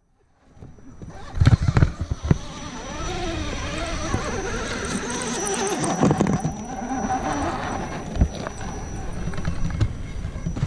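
Electric scale RC crawler's motor and geared drivetrain whining close by, its pitch rising and falling with the throttle as it crawls over rock, with a few sharp knocks about a second and a half in.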